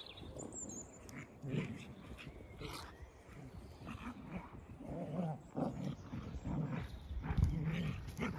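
Two dogs growling in play as they romp together, in short repeated growls that come more often in the second half.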